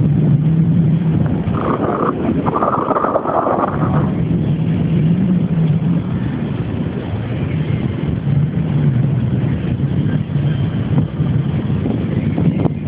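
Wind rushing over the microphone of a camera carried on a moving bicycle: a steady, loud rumble that wavers, with a brighter burst of noise from about two to four seconds in.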